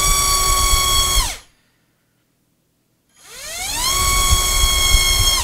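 Flycolor MT2204 2300kv brushless motor spinning a DAL T5045 blunt-nose propeller on a thrust stand: a steady high whine that cuts off a little over a second in and winds down. After a short silence the motor spools up again with a rising whine, levels off to a steady pitch and stops abruptly near the end.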